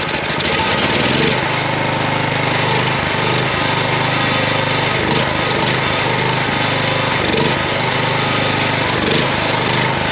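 An old 5,000-watt portable petrol generator's engine running just after starting on choke, its carburetor freshly cleaned after seven or eight years of sitting unused. It runs a little unevenly, not yet fine-tuned.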